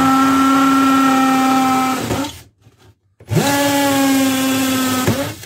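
Bosch GSB 120-LI 12 V cordless hammer drill in hammer mode, boring an 8 mm carbide-tipped masonry bit into a ceramic brick. The motor runs at a steady pitch and winds down about two seconds in, then starts again about a second later and winds down near the end. The bit goes through the brick without effort.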